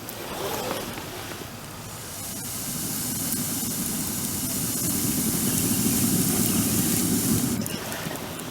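Wood bonfire hissing: a rushing hiss swells over several seconds and stops abruptly near the end, with crackling and popping around it.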